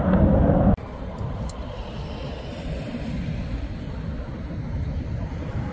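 A loud rumble breaks off abruptly less than a second in. It gives way to a fainter steady low rumble of a distant aircraft in flight.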